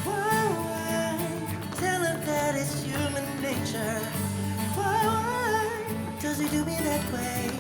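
Pop song playing: a sung melody with vibrato over held bass notes.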